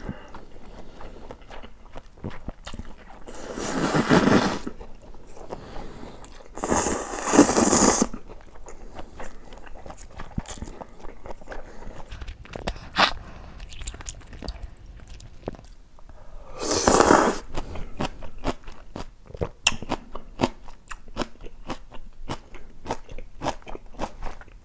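Close-miked slurping of yeolmu naengmyeon noodles, three long slurps, with crunchy chewing and mouth clicks in between.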